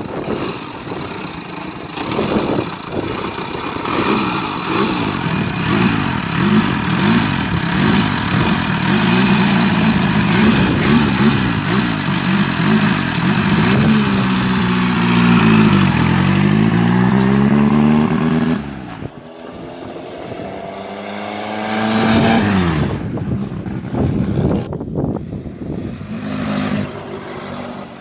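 1959 Nimbus motorcycle's air-cooled four-cylinder engine running and being revved up and down several times. The engine note drops suddenly, then rises again as the bike pulls away, and fades as it rides off.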